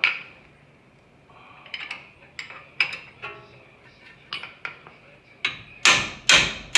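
Brass hammer striking a wrench, sharp metallic blows that ring. A few lighter clinks in the middle, then the blows come heavier and quicker, about two a second, near the end.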